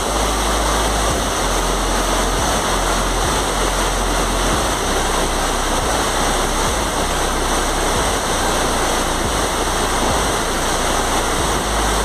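Flowing river water rushing steadily over rocks.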